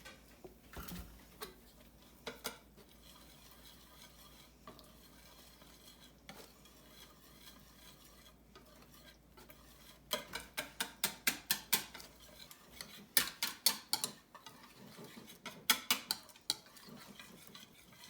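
Batter of flour and club soda being stirred in a bowl, the utensil clinking against the bowl: a few scattered taps at first, then quick runs of strokes at about five a second in the second half.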